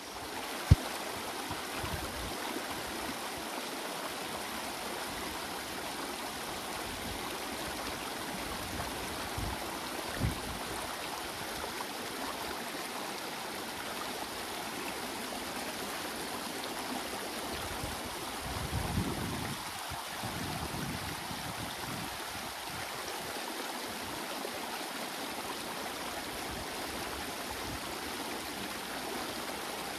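Creek water rushing steadily over a shallow rocky riffle. There is a single sharp click just under a second in, and a brief low rumble about two-thirds of the way through.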